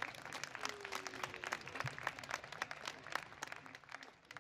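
Crowd applauding, with dense irregular clapping that dies away near the end.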